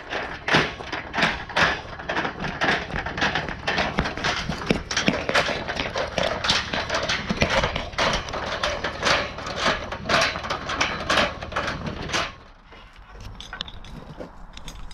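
Footsteps crunching on a gravel road in a steady walking rhythm, stopping about twelve seconds in.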